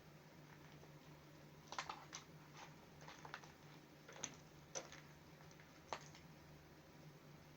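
Kittens playing: faint, irregular light taps and clicks of small paws, clustered between about two and six seconds in, over a steady low hum.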